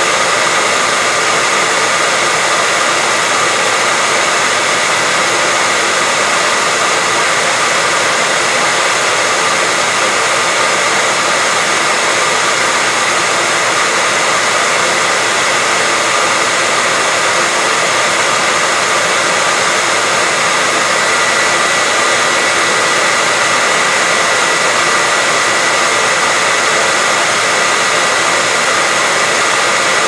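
Hair dryer running steadily: an even rush of blown air with a steady high whine from the motor, unchanging throughout.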